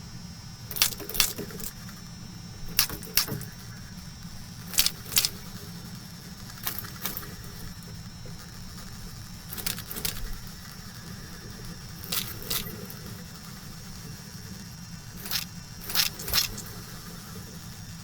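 Ghost crab rasping with the grinding teeth in its stomach (gastric mill), a sound it uses to communicate. The rasps come in short bursts, mostly in pairs, about every two to three seconds, over a steady low hum.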